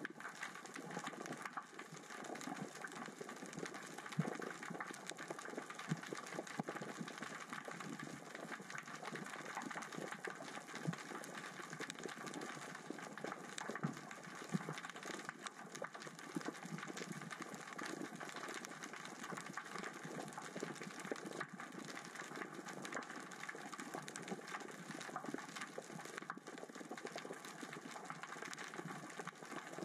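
Steady underwater crackling and clicking from small rocks rolled across the sea floor by the current and tide. It is a dense, unbroken patter of tiny clicks with no low rumble under it.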